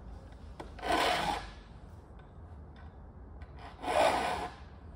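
A saw file drawn across the teeth of a hand saw held in a wooden saw vise: two rasping file strokes about three seconds apart, sharpening the saw's teeth.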